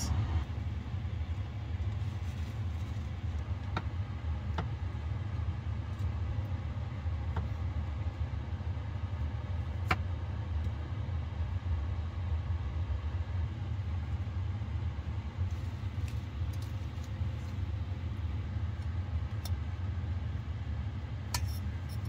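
Steady low hum filling a camper van's interior, with a few faint clicks and taps from small items being handled at the counter, one sharper click about halfway through.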